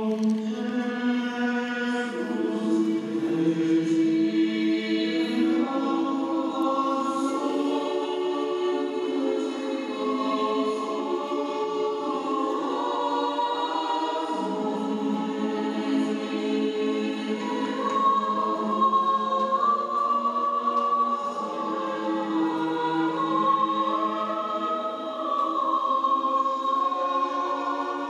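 A choir singing a slow sacred hymn, several voices together in long held notes that change every few seconds.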